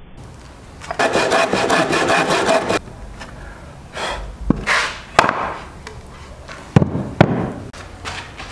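A saw cutting through an old wooden board, a dense rasping for about two seconds, followed by a few sharp knocks and swishes.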